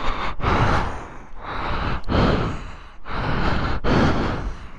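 A person breathing hard and fast close to the microphone, about one noisy breath a second.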